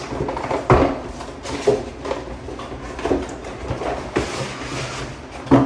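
Toothbrush packaging being handled and opened: a series of knocks and clicks, roughly one a second, with rustling in between.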